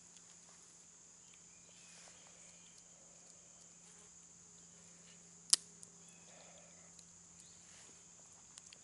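Steady high drone of insects, with one sharp click about five and a half seconds in and a few faint ticks after it as a small knife pries at the shell of a roasted hickory nut.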